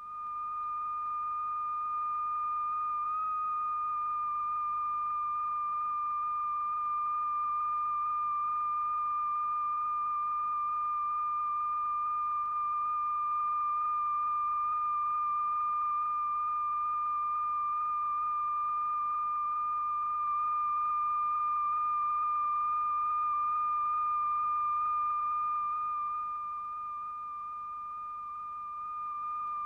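Steady high-pitched pure tone from a tone generator, the sound frequency driving the vibrating diaphragm in a cymatics experiment. It has a fainter overtone above it, wavers slightly in pitch about three seconds in, and dips in volume briefly near the end.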